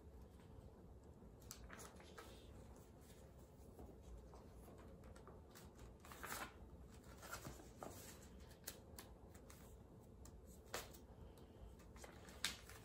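Pages of a paper LEGO instruction booklet being leafed through: faint, scattered rustles with a few louder page turns around the middle and near the end.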